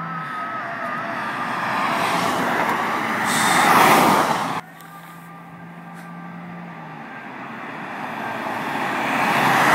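Cars driving past at highway speed, about 115–125 km/h. Their engine and tyre noise builds to a loud peak and cuts off suddenly about four and a half seconds in. Then another pair of vehicles approaches and passes near the end.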